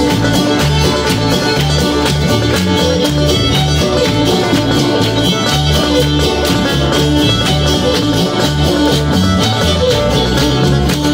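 Bluegrass music with fiddle, banjo and guitar at a fast tempo, with the steady tapping of clogging shoes on the stage, about four taps a second.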